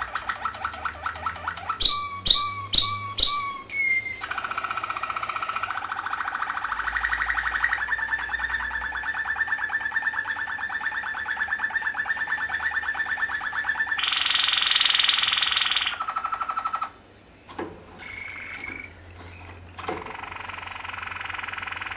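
Canary singing a long song of fast, rolling trills. About two seconds in come four loud, sharp, knocking notes in quick succession, and about two-thirds through a harsher, rasping phrase. The song stops briefly near the end, then the trilling resumes.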